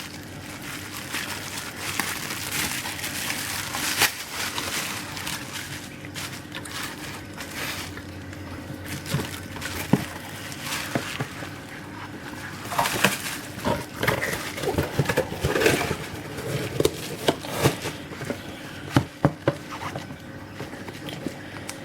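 Scorpion shipping package being handled and opened by hand: irregular rustling, crinkling and scraping with scattered sharp clicks and taps, over a faint steady hum.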